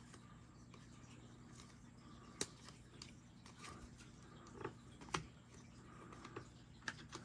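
Faint handling of trading cards: a few sharp clicks and soft rustles as cards are shuffled through by hand, over a low steady hum.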